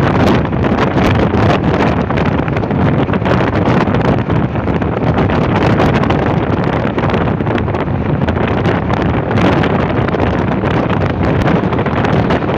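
Steady rush of wind and road noise from a car travelling at motorway speed, with wind buffeting the microphone.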